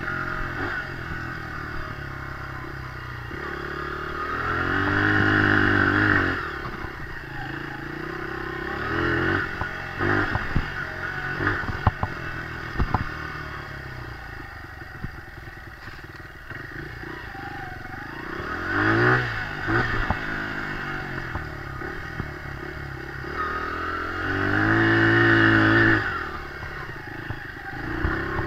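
Dirt bike engine being ridden along a trail, mostly running at part throttle with three revving surges, about five seconds in, near nineteen seconds and around twenty-five seconds. A few sharp knocks and rattles come midway.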